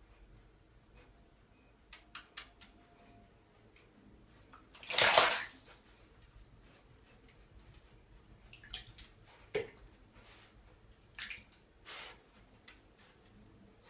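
Bathwater splashing and sloshing as miniature dachshunds move about in a filled bathtub: one loud splash about five seconds in, with several smaller splashes and drips around it.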